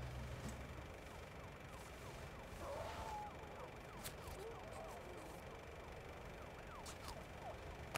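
A faint siren wailing over quiet steady hiss, with a few small sharp clicks.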